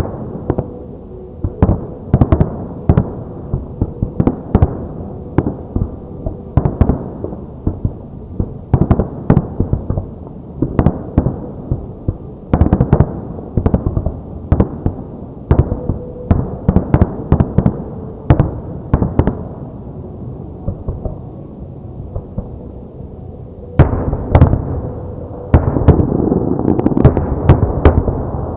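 Fireworks shells bursting in quick succession, each sharp bang trailing off in a low rumble. About 24 seconds in the bursts thicken into a louder, continuous barrage with crackling between the bangs.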